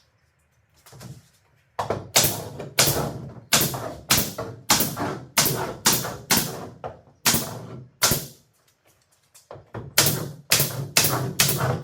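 Repeated sharp knocks on wood, like hammer blows, about one and a half a second, each with a short ringing decay. They break off about eight seconds in, then resume at a quicker pace.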